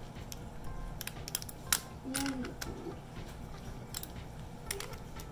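A string of small sharp metallic clicks and taps as baitcasting reel parts and a small tool are handled on the work mat, the loudest about a second and a half in.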